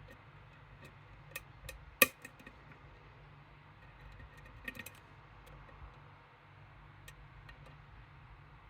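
Small metallic clicks and taps of lock picks working in a Medeco M3 high-security lock: scattered light ticks, one sharp click about two seconds in, and a quick cluster of clicks near five seconds.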